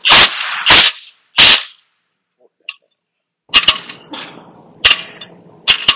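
Three short bursts from an air impact wrench running a bolt down on the transmission's shift linkage, then a few sharp metallic clicks.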